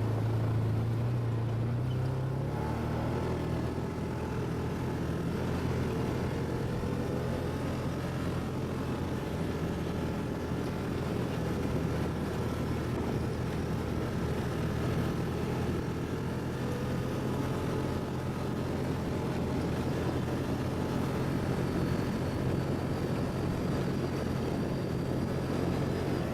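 ATV engine running steadily, its note dropping about two seconds in and then holding.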